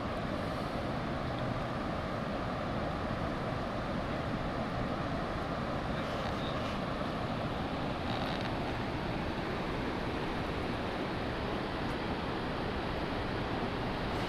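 Steady rushing of river rapids, an even wash of water noise that holds level throughout.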